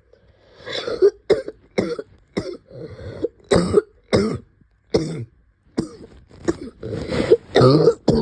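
A person with a Covid-19 cough coughing in a long fit, about a dozen harsh coughs in quick succession.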